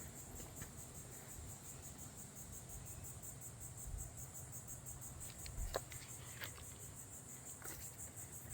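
Insects trilling in a steady, high, fast-pulsing chorus, with a few faint clicks, the most distinct just before six seconds in.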